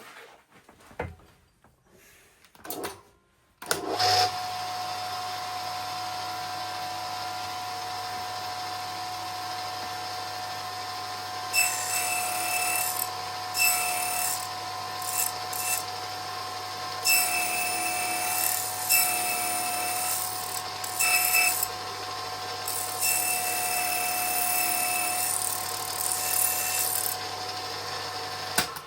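Aciera F1 desktop milling machine switched on a few seconds in, its spindle running steadily with a constant whine. From about a third of the way in the cutter bites into the workpiece in repeated bursts of cutting noise as it is fed by hand lever, and the machine stops just before the end.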